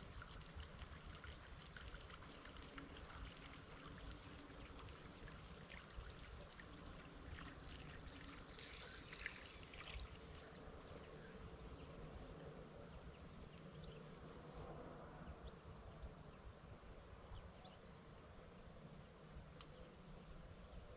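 Near silence: faint outdoor background noise with a low rumble and a few soft ticks.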